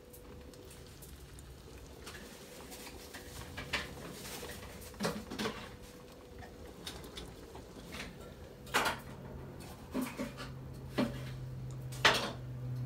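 Scattered small clicks and taps as fingers pick excess beeswax off the bottoms of hanging taper candles, the loudest near the end, over a low steady hum that grows stronger in the second half.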